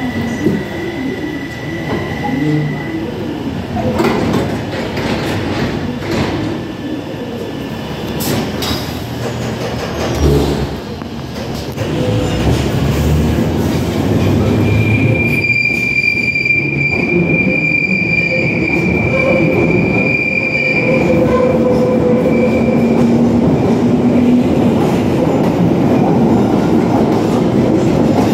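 London Underground Bakerloo line 1972 Stock train closing its doors with a few knocks, then pulling out of the platform into the tunnel. It runs with a steady rumble that builds toward the end, and a high wheel squeal lasts several seconds midway.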